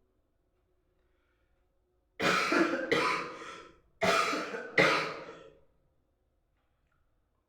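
A person coughing in two fits, each of two coughs in quick succession, about two and four seconds in.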